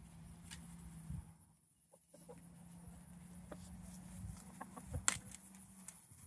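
Chickens clucking softly and sparsely while foraging, with a few sharp clicks, the loudest about five seconds in, over a low steady hum.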